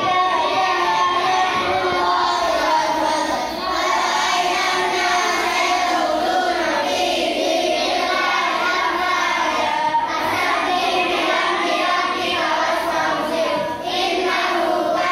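A class of children reciting short surahs of the Qur'an aloud together in a chanted tadarus recitation. The many voices run on steadily, with two brief breaks.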